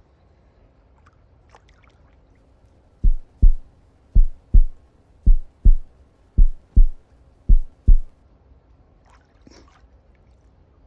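Heartbeat sound effect: five loud, deep lub-dub double thumps at a slow, even pace, starting about three seconds in and stopping near the end.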